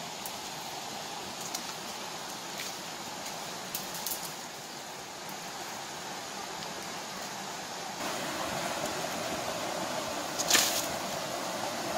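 Stream water rushing over rocks, a steady hiss that grows louder about two thirds of the way through, with scattered faint clicks of twigs and footsteps on stone and one sharp knock near the end.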